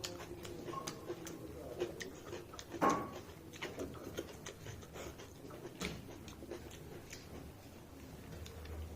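A person eating mutton and rice: soft chewing with scattered small clicks, and one louder click about three seconds in.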